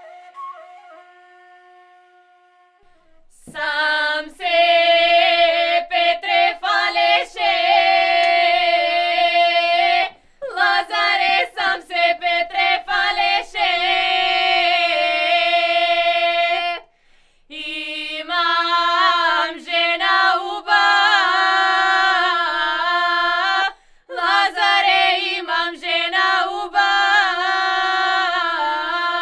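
A held woodwind note fades away, then a group of girls sing a Macedonian Lazarus Saturday (lazarki) ritual song a cappella in four long drawn-out phrases with short breaks between them, over a steady low held note.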